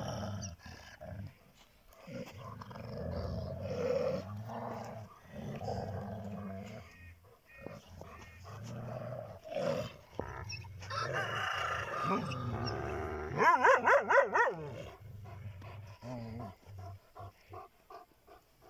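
Large shepherd dogs growling at each other in long, low rumbles. About thirteen seconds in comes a loud, wavering high-pitched cry from one of them.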